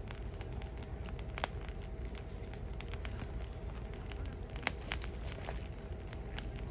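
Firewood burning: steady crackling over a low rumble, with sharp pops about a second and a half in and twice more close together near the middle.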